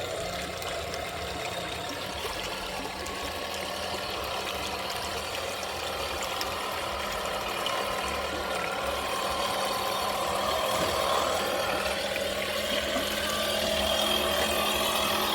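Simulated diesel engine sound from an RC crawler's engine sound module, playing steadily through its small speaker and slowly getting louder.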